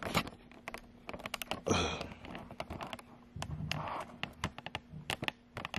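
Handling noise from a phone camera being moved about and set down: an irregular run of small taps, knocks and rubbing against the phone.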